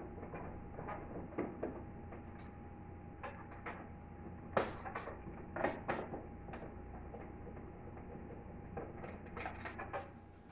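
Scattered light clicks and knocks of parts being handled, over a steady low hum, with a small cluster of them about halfway through and again near the end.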